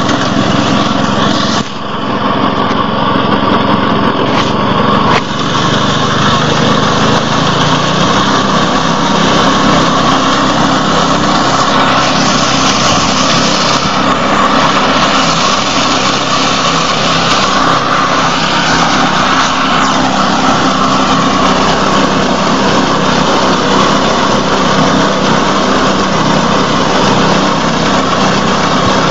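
Engine of a wheat and rice reaper machine running steadily under power, with a brief dip in level about two seconds in.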